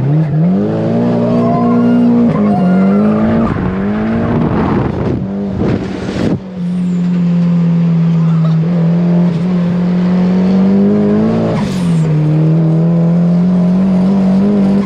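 Turbocharged SR20DET four-cylinder of a Nissan 240SX S14 running hard on the street. The engine note climbs and drops several times, with a short rush of noise about six seconds in and again about twelve seconds in.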